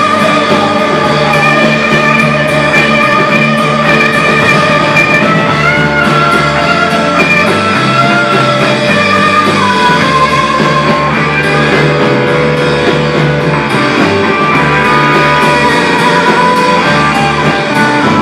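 Live rock band playing loudly: electric guitars over a drum kit, with long held guitar notes.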